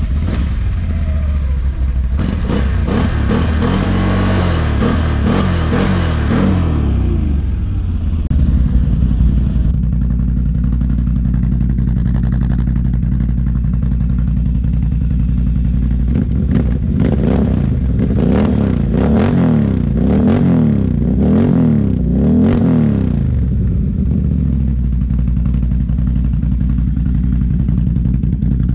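Can-Am Renegade 1000 XXC quad's V-twin engine idling and being revved repeatedly. For the first seven seconds or so it runs through the stock exhaust. After an abrupt change, it runs through an RJWC double exhaust with the dB killer removed, idling steadily with a run of quick throttle blips in the middle.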